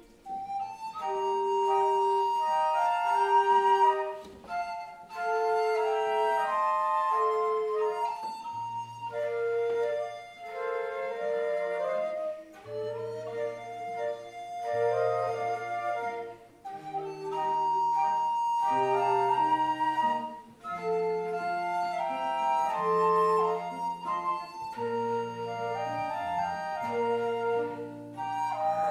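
Flute playing a slow melody in held notes with piano accompaniment, pausing briefly between phrases.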